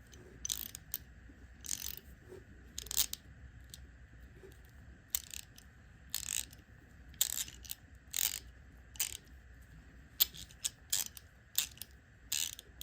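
Freshly greased Craftsman 3/8-inch hand ratchet being worked back and forth: short bursts of pawl clicking, in irregular strokes roughly once a second.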